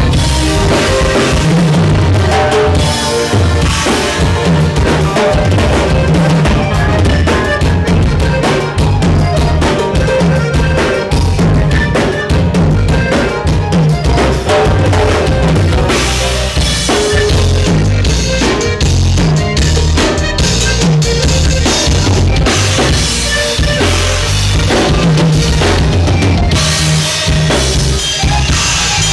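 Live dance band playing loud through a PA: a steady drum-kit beat with bass drum and snare, over electric bass and accordion.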